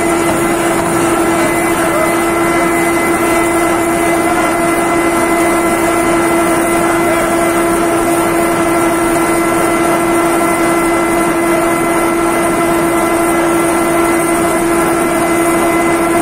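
D51Y-1000 hydraulic ring rolling machine running: a loud, steady machine din with a constant whine.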